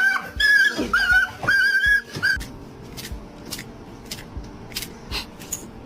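A pet animal making a run of about four high, drawn-out whining cries, each held at a steady pitch. After them comes a quieter stretch with scattered clicks.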